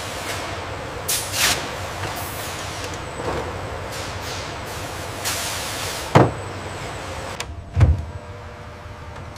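Factory ambience: a steady mechanical hiss with a few airy whooshes, a sharp clunk about six seconds in and a duller thump just before eight seconds.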